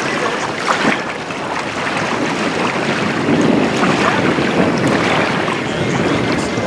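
Gusty wind rushing over the microphone, a loud, uneven noise that swells and dips without any clear pitch.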